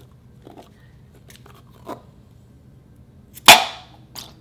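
Glue-filled rubber balloon handled with a few faint rubbery clicks, then cut open with scissors: one sharp, loud pop about three and a half seconds in, trailing off briefly as the clear glue spills out into a glass bowl.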